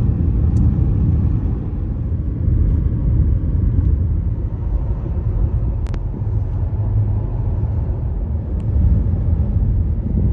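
Car driving along a road: a steady low rumble of tyres and engine, with a faint short tick about six seconds in.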